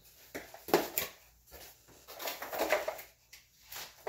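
Rustling and handling of a diamond-painting kit's cardboard box and plastic packaging as it is unpacked, with a couple of sharp knocks about a second in.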